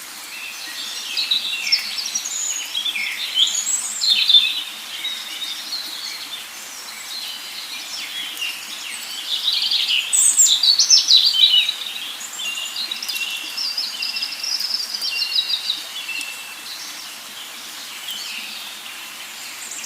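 Birds chirping and calling: a near-continuous run of short, high chirps and call phrases over a faint steady background, with louder bursts about four seconds in and again around ten to eleven seconds in.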